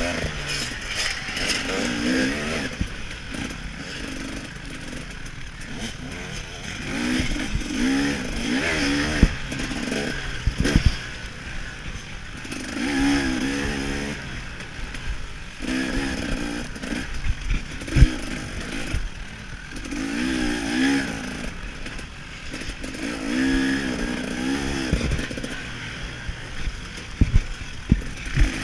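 KTM 300 XC-W two-stroke dirt bike engine revving hard and falling back over and over, about every two to three seconds, as the bike is ridden around a motocross track. Sharp knocks break in now and then, the loudest about eighteen seconds in.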